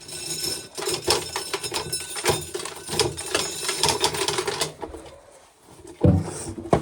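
Corn sheller stripping an ear of corn: a rapid clatter of kernels and mechanism for a few seconds, then a single thump near the end.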